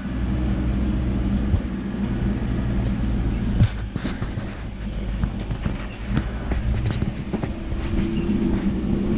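Kia Bongo 3 truck driving, its engine running steadily, with scattered knocks and rattles from the vehicle.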